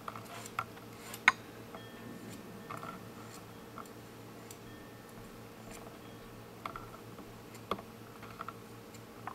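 Hand file scraping the cut end of 14 gauge sterling silver wire in a few short strokes to taper its point, with scattered sharp metallic clicks as wire and file are handled, the loudest click about a second in.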